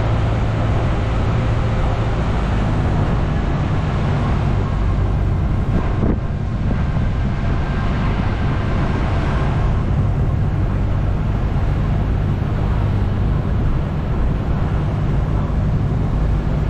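Engine running steadily with road and wind noise, heard from aboard a moving vehicle, with a single knock about six seconds in.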